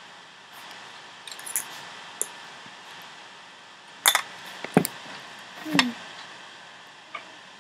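Scattered sharp clicks and light clinks of small hard objects over a steady background hiss. There is a cluster about a second and a half in, and the loudest ones come around four and five seconds in.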